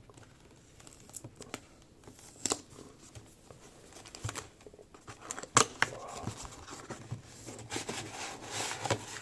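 A product box and its packaging being opened and handled by hand: scattered rustling and crinkling with light clicks and knocks, the sharpest click about five and a half seconds in and denser rustling near the end.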